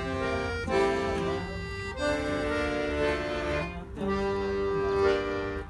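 Bayan (button accordion) and dombra playing a tune together. The accordion holds full chords that change every second or two, with the dombra strummed along beneath.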